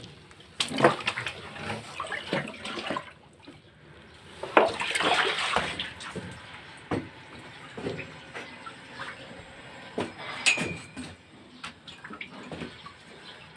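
Water splashing in irregular bursts, with scattered knocks and scrapes; the longest and loudest splash comes about five seconds in.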